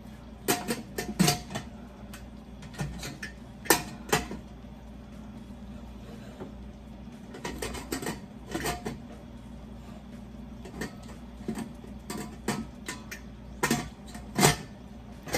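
Scattered metal clanks and clicks of a pressure cooker's lid being handled and fitted onto the pot, some ringing briefly, over a steady low hum.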